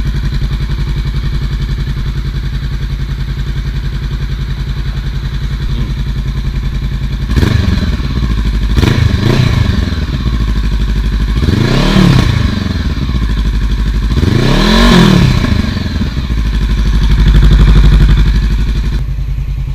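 Honda CB500F parallel-twin engine idling steadily, then revved several times in short blips, each one rising and falling back in pitch.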